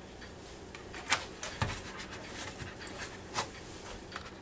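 A few light clicks and knocks from a plastic milk jug being handled and set aside after pouring milk into a bowl, over a faint steady hum.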